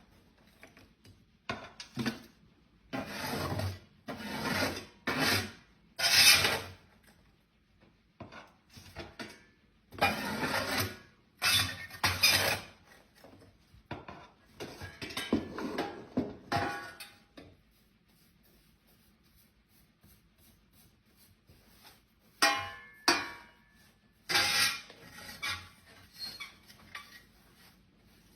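Metal ash shovel scraping ash along the floor of a wood-burning stove's firebox in repeated short strokes, tipping it into a metal bucket. The strokes stop for a few seconds just past the middle, then resume.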